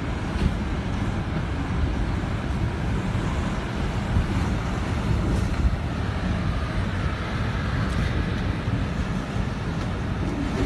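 Hurricane wind blowing hard and buffeting the microphone: a constant rushing noise with a heavy, uneven rumble underneath.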